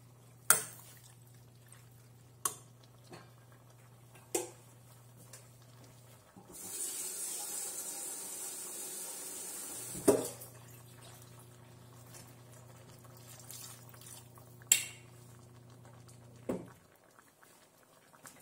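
Slotted metal spoon knocking against a nonstick frying pan of stir-fried beef and vegetables, about six sharp clinks spread through the stirring. A steady hiss lasts a few seconds midway, and a low steady hum runs underneath.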